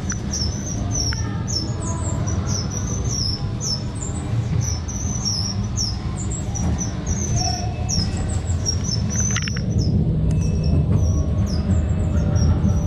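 Ghost train ride car rumbling along its track, with high-pitched chirping squeaks repeating about three or four times a second throughout.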